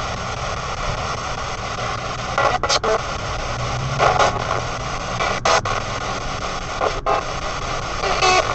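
P-SB7 spirit box sweeping the FM/AM radio bands: steady radio static broken by short louder snatches of station audio about every one and a half seconds, with a few brief cut-outs as it skips between frequencies. A low car rumble runs underneath.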